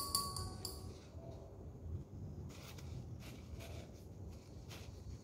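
Faint rustling of a paper tissue as a metal nail electrode is wiped dry by hand, with a short light clink at the start.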